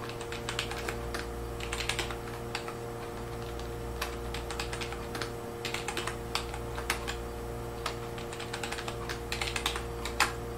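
Computer keyboard keys clicking in short irregular runs as a password is typed in, over a steady low electrical hum.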